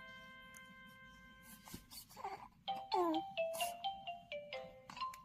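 Background music: a glockenspiel-like mallet-percussion tune, its notes ringing and fading, then a quick stepping melody from about halfway through. Around the middle there is a short noisy sound and a brief falling, cry-like squeak.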